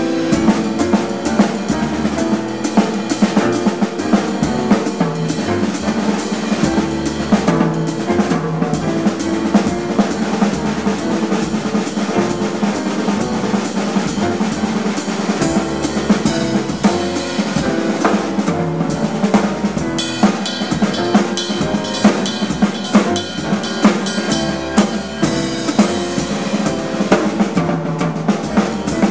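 Jazz piano trio playing live: grand piano, upright bass and drum kit, with the drums and cymbals prominent over the piano and bass.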